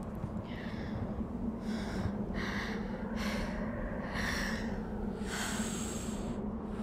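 A person breathing hard in a run of about six gasping, breathy pants, each lasting about half a second, over a steady low hum.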